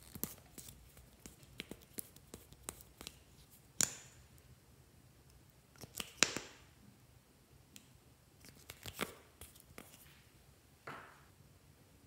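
Small plastic makeup bottles handled over a glass dish of slime: a scattered run of sharp clicks and taps, with a few short squishy bursts as liquid lip tint is squeezed out onto the slime.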